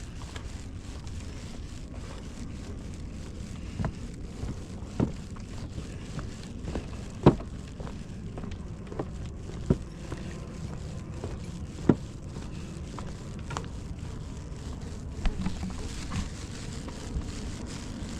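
A hiker walking a trail, with scattered sharp snaps and crackles underfoot, the loudest about seven, ten and twelve seconds in, over a low wind rumble on the microphone.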